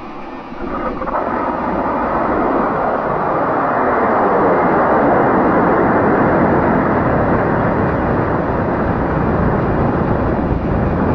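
High-power model rocket's H110 solid-fuel motor igniting about a second in and roaring at liftoff as the rocket climbs. The rushing sound swells quickly, carries a whooshing tone that falls in pitch over the first few seconds, and then holds loud and steady.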